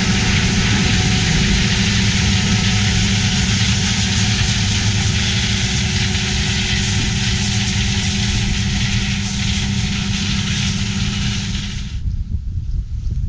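Diesel engine and working machinery of heavy harvest equipment running steadily under load, a low engine drone under a loud, even mechanical hiss. The sound drops away suddenly near the end, leaving a quieter, gusty wind noise.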